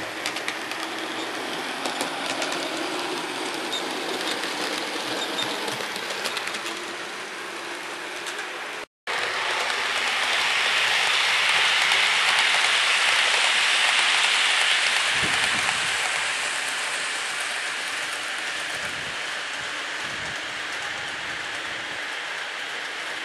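Model trains running on the layout track: a steady noisy whir of wheels and motors with faint clicks. After a break about nine seconds in, a passing model train grows louder and then slowly fades away.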